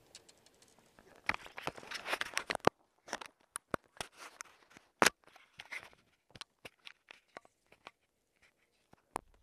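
Close handling noise on a handheld camera: a sleeve rubs and knocks against it. There is a dense crackle for about a second and a half, then scattered sharp clicks and scrapes that thin out near the end.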